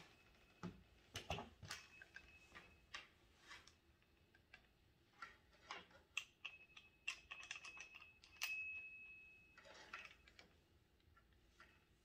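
Faint clicks and taps of a hole saw bit being handled and fitted into a power drill's chuck, with a thin high squeak for a few seconds past the middle.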